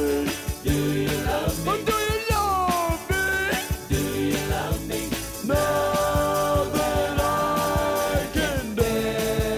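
Upbeat soul-rock band music played from a vinyl record, with a steady beat. The melody slides through several notes, then holds long notes near the end.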